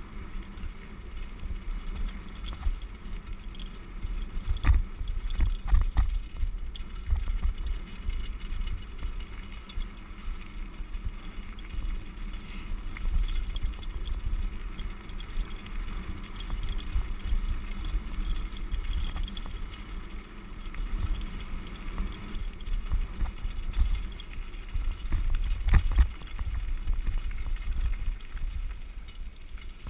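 Mountain bike rolling downhill on a gravel road: a steady low rumble of tyres and wind on the camera microphone, with a few harder jolts over rough ground, the strongest about five seconds in and near the end.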